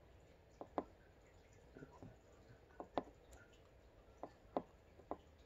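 Brightness buttons on a Sig Romeo 5 red dot sight clicking as the dot is stepped up through its brightness settings. It is a string of about seven faint, short clicks, spaced unevenly.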